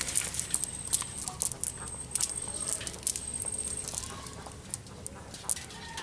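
Irregular sharp clicks and light rustling from a wet cast net being handled as small fish are picked out of its mesh, busiest in the first few seconds and thinning out after.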